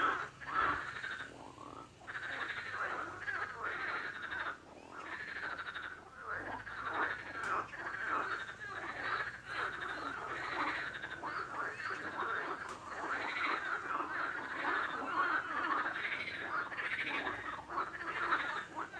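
A chorus of many frogs calling at once, their short croaks overlapping without a break.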